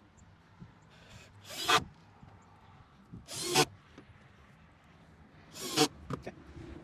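Three short rubbing scrapes, wood against wood, each building up over about half a second and then stopping abruptly, with quiet between them.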